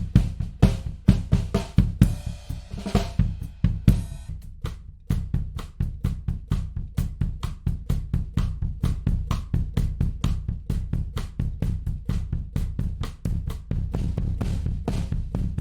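A recorded drum kit, with kick, snare, hi-hat and cymbals, played back through a tape-emulation plugin. The first few seconds have loud accented hits and a cymbal crash. From about five seconds in, the beat settles into a faster, even run of hits.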